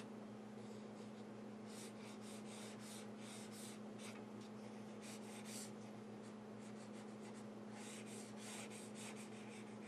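Faint felt-tip marker strokes on paper: quick, irregular scratchy scribbling as the wheels of a car sketch are darkened in, over a steady low hum.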